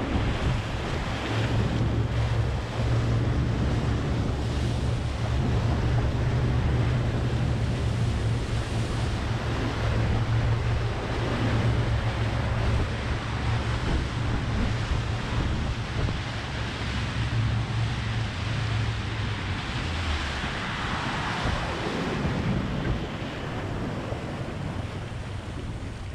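Wind buffeting the microphone over the steady noise of open sea water around a boat. The low rumble eases about twenty seconds in.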